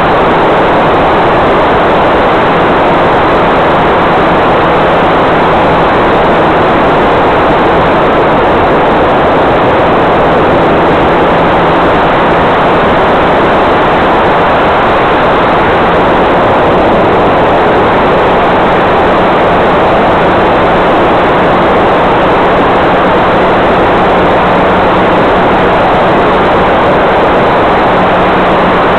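Radio-controlled Piper L-4 scale model plane in flight, heard from on board: a steady motor-and-propeller drone with one held tone, under loud wind rush on the microphone. The tone steps up slightly about halfway through.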